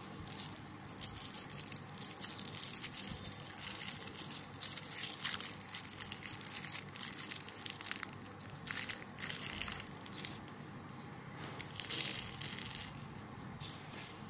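Fingers crunching and pressing crushed slate-pencil powder on a plastic sheet, with a foil-and-cellophane toffee wrapper crinkling in the middle. The sound comes in irregular bursts of rustling and crunching.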